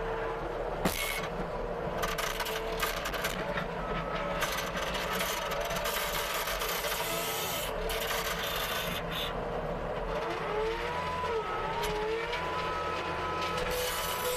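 Case TR270B skid steer's diesel engine and hydraulics running under load while working a rototiller attachment, with a steady whine whose pitch wavers up and down about ten seconds in and a sharp click about a second in.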